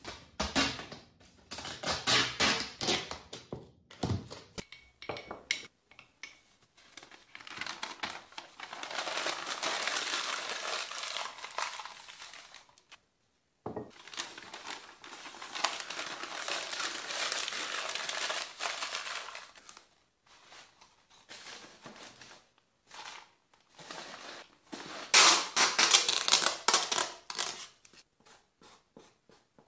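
Sheets of packing paper crinkling and rustling as cups are wrapped in them by hand, in irregular bursts with two longer stretches of steady crumpling. A louder burst of rustling and handling comes near the end.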